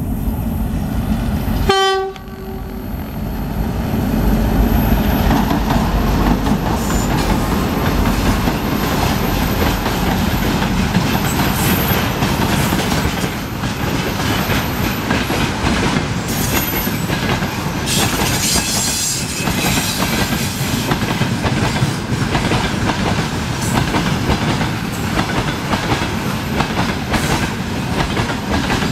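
A diesel locomotive gives a short horn blast about two seconds in. Then a long freight train of tank cars, gondolas and boxcars rolls past close by, its wheels clattering steadily over the rail joints.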